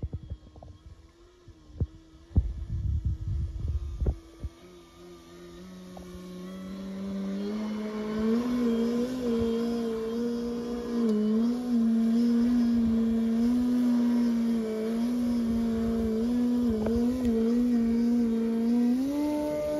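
Electric RC aerobatic plane's brushless motor and 15x8 propeller buzzing in flight, a steady tone that wavers up and down with the throttle. It grows much louder about a third of the way in as the plane comes close, and its pitch steps up near the end. Wind buffets the microphone briefly early on.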